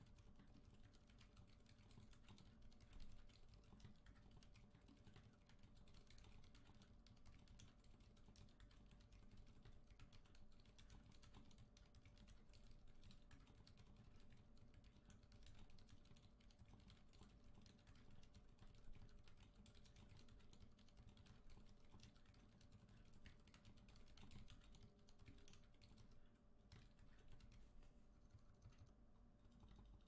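Quiet, continuous typing on a 60% gasket-mount custom mechanical keyboard with stock Silent Alpaca silent linear switches on a brass plate: a dense stream of soft keystrokes that thins out a little near the end.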